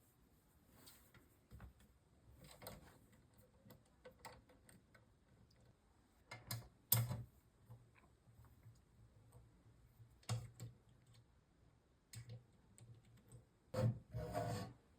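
Scattered clicks and light knocks of small computer hardware being handled and fitted, with louder knocks about seven seconds in and a cluster of them near the end.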